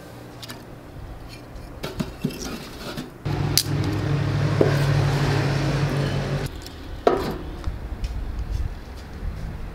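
Metal tongs clinking and scraping against a rusted steel barrel wood stove as the fire is tended. About three seconds in, a steady low mechanical hum starts abruptly and runs for about three seconds before cutting off, followed by a single sharp knock.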